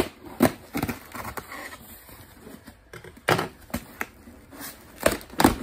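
Cardboard shipping box being cut and pulled open by hand: a string of sharp cardboard knocks and crackles, with short quiet gaps between them.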